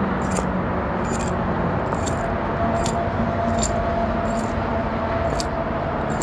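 A car's indicator flasher clicking steadily, a little under once a second, over constant engine and road noise inside the car.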